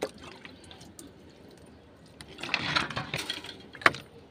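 A sharp click, a brief rustle about two and a half seconds in, and another sharp click near the end.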